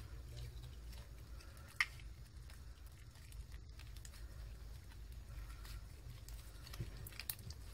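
Faint sticky clicks and squishes of homemade glue slime being kneaded by hand, the slime stiff and crumbly rather than stretchy, over a low steady hum.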